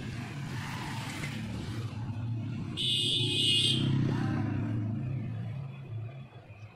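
Low steady engine drone of road traffic, with a short high-pitched tone about three seconds in that lasts about a second.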